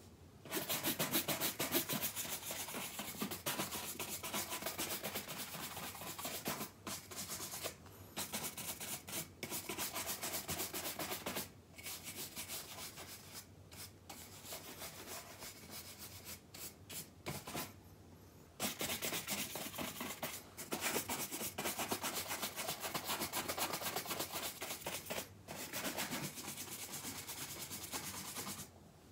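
Horsehair shoe brush stroked quickly back and forth over leather shoes, a rapid brushing hiss in long runs. It breaks off for short pauses several times, with a longer gap about two-thirds of the way through, and is softer in the middle stretch.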